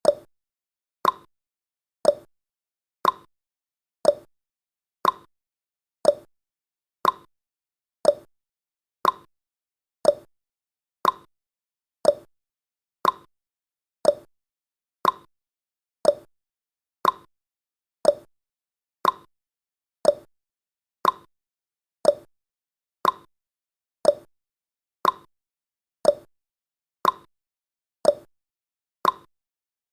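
Countdown timer's clock-tick sound effect: a short, sharp tick once every second, evenly spaced, each fading quickly.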